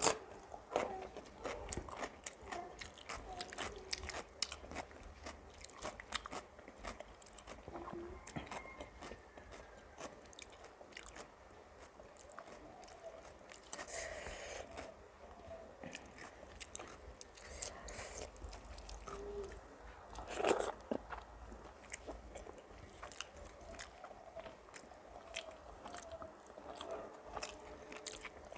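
Close-miked eating sounds: a person chewing and crunching food, with many small wet clicks and smacks of the mouth in an irregular run.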